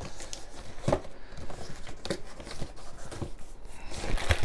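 A small cardboard box being handled and cut open with a utility knife: scattered knocks, scrapes and rustles of cardboard, with a sharper knock about a second in.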